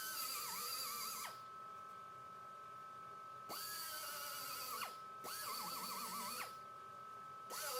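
Power sander run in short bursts on sheet-metal bodywork, stopping and restarting about three times; its high whine spins up at each start and wavers as it bears on the metal. A steady high tone runs underneath.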